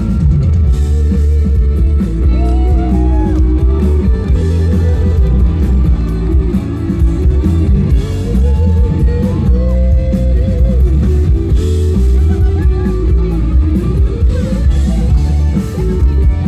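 Rock band playing live: a voice singing over electric guitars, bass and drums, with heavy bass.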